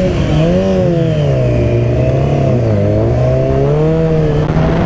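Sport motorcycle engine accelerating through the gears. Its pitch climbs, dips at each shift and climbs again several times, then holds higher near the end.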